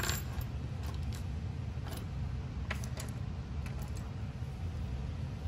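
Light metal clicks and taps from handling the parts of a disassembled FX Wildcat MK3 air rifle action: a sharp click at the start, then scattered small ones over the next four seconds, over a steady low hum.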